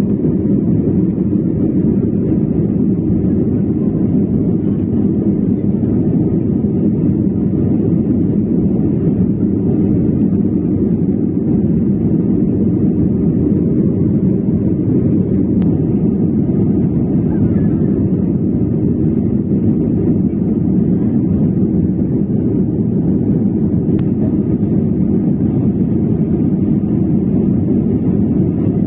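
Steady low rumble of a passenger aircraft, heard from inside the cabin: even engine and air noise with no change in level.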